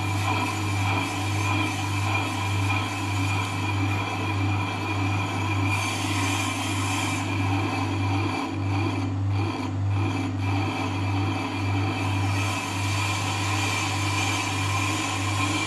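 FDT6000 brake disc lathe running steadily, its motor humming low and even while the cutting tool skims the face of the spinning brake disc with a continuous metal scraping.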